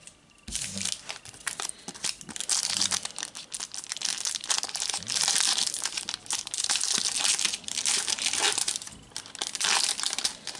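The foil wrapper of a Panini Adrenalyn XL trading card packet is torn open and crinkled by hand. It makes a continuous crinkling rustle, loudest in the middle and again near the end.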